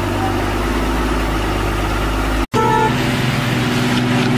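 A heavy goods truck's diesel engine runs with a steady low drone. About halfway through, the sound cuts out for an instant and comes back as a higher engine note, with a short horn toot lasting about half a second.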